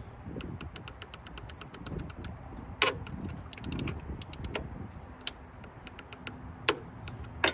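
Socket ratchet clicking in quick runs as the engine-mount bolts are run down, with a few sharper single metal clicks between the runs.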